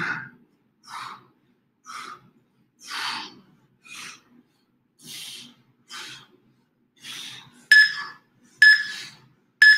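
A man breathing hard while doing crunches, one forceful breath about every second. Near the end come three louder, sharper breaths a second apart, each carrying a thin whistling tone.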